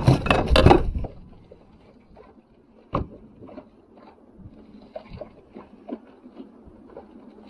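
A loud burst of noise in the first second, then scattered light knocks and taps against a fishing kayak, with one sharper knock about three seconds in.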